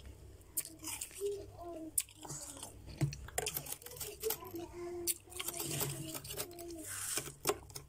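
Soft, powdery freezer frost crunching as it is worked with a spatula and squeezed by hand in a bowl: a run of short, crisp, irregular crunches.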